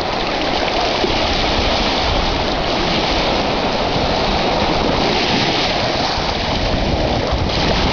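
Steady rushing of ocean surf washing in at the shore.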